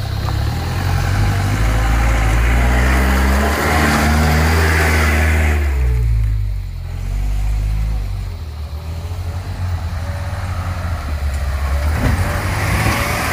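Off-road 4x4's engine revving hard under load, its pitch climbing in steps, then easing off about six seconds in to lower, uneven running. A sharp knock comes near the end.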